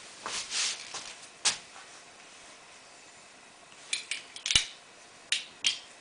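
Leatherman Super Tool 300 multitool being handled: a scrape, then scattered sharp metal clicks, several in a quick cluster past the middle.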